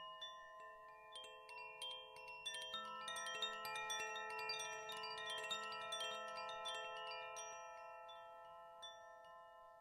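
Chimes ringing: many light metallic strikes on a handful of sustained pitches, overlapping and densest in the middle, then thinning out and dying away near the end.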